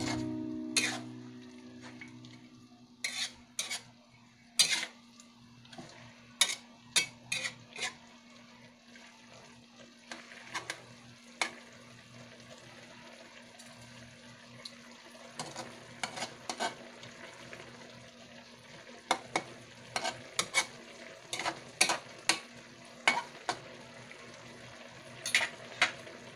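Chicken and vegetables simmering in sauce in a steel wok with a soft sizzle, broken by scattered sharp pops and clicks that come singly or in quick clusters.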